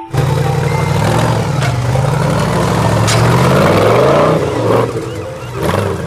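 Off-road rock-crawler buggy's engine revving up and down as it crawls over rocks, its pitch rising about four seconds in.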